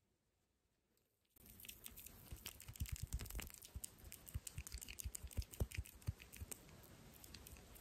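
After about a second of near silence, bubbling face-mask foam is squished and rubbed between fingertips held right at the microphone, a dense run of small crackles and pops.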